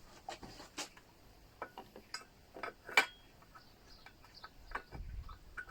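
Scattered light metallic clicks and taps of hand tools and small metal parts being handled, with one sharper metal clink about three seconds in that rings briefly, and a dull low bump near the end.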